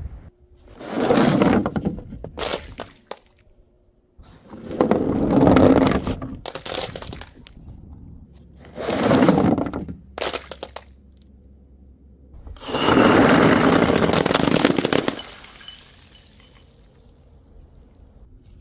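Glass bottles breaking: four loud crashes of shattering glass a few seconds apart, with a few short clicks between them.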